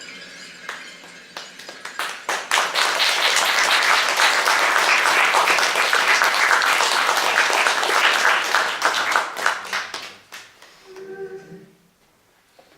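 Audience applause at the end of a song. A few scattered claps build to full clapping about two seconds in, which dies away near the end.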